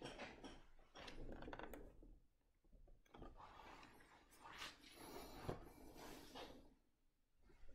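Near silence with faint rustling and rubbing, as of things being handled, and a light knock about five and a half seconds in.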